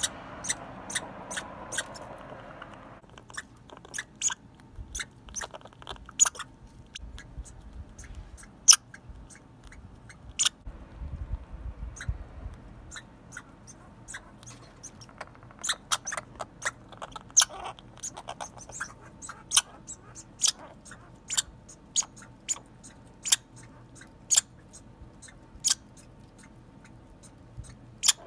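American red squirrel chewing food held in its forepaws, close to the microphone: a long run of sharp, crunchy little bites and clicks at an uneven pace, about one or two a second.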